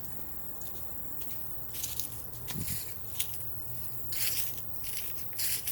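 Footsteps crunching on dry ground, irregular steps starting about two seconds in.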